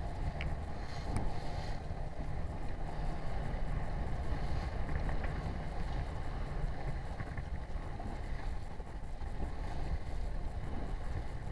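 Steady wind noise on the microphone with rushing, splashing water from a small boat underway in choppy sea.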